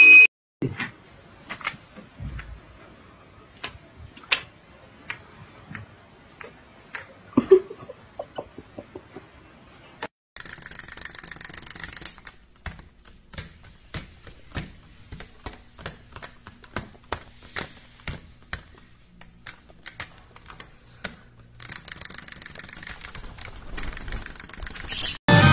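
Light, irregular clicks and taps on a hard tile floor, a few a second, from caique parrots hopping and pecking around a small toy chick. A faint low hum comes in for a few seconds midway.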